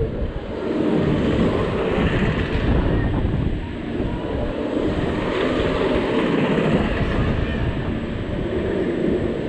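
Rushing air buffeting the rider's camera microphone as the Reverse Time spinning ride turns, a continuous loud rumble and whoosh that swells and dips every few seconds with the rotation.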